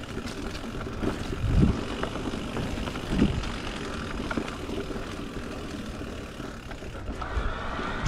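Niner RIP E9 electric mountain bike ridden along a dirt trail: wind buffets the camera microphone in low gusts, over a steady rumble of tyres and small clicks and rattles from the bike.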